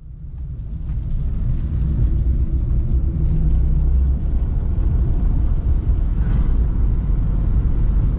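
Steady low road and engine rumble inside a moving car, fading in over the first second or two.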